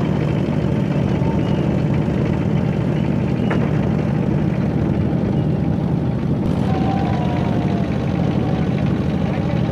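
A boat engine running steadily at a constant speed, heard from on board the boat.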